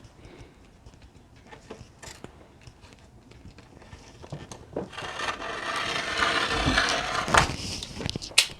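Scissors cutting through linen fabric and the cloth being handled: faint clicks at first, then a long rasping cut about five seconds in, ending in a couple of sharp snips or clicks.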